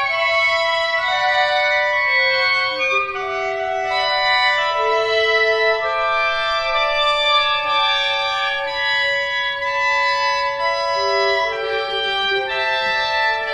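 Clarinet ensemble holding long overlapping notes that change pitch at staggered times, building slowly shifting chords.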